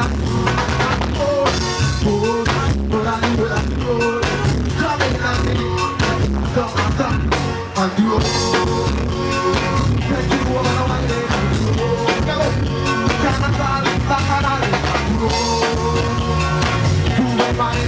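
A band playing upbeat music with a drum kit and a steady beat, the sound dipping briefly about eight seconds in.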